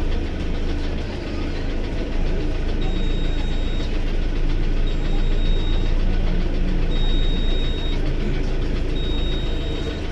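Eicher bus diesel engine running steadily, heard from the cab beside the engine cover. A high beep about a second long repeats roughly every two seconds from about three seconds in.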